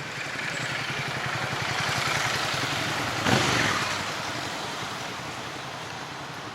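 A motor vehicle passing close by on a city street: its engine and road noise swell, peak sharply about three seconds in, then fade away.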